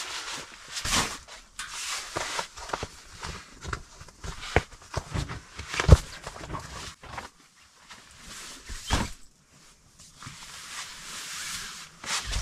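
Rustling of tent fabric and clothing being handled, with scattered knocks and a sharp thump about six seconds in.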